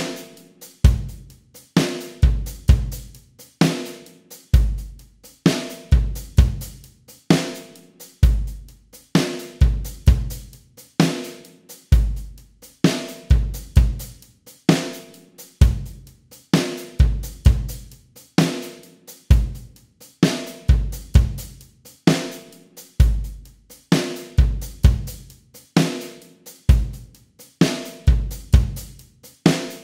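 Programmed drum kit, sampled in Superior Drummer 2.0, playing a steady 4/4 practice beat at 65 beats per minute: kick and snare drum with hi-hat and cymbal, a stroke about every second.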